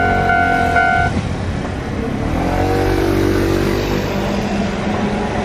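Level-crossing warning bell ringing in a repeating ding about twice a second, cutting off about a second in. Then a road vehicle's engine pulls away across the crossing, rising in pitch before it settles.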